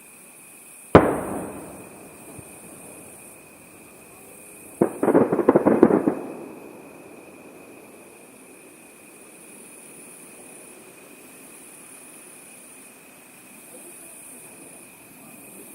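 Aerial firework shells bursting: one sharp boom about a second in that dies away, then another boom a few seconds later followed by a rapid run of crackling reports lasting about a second.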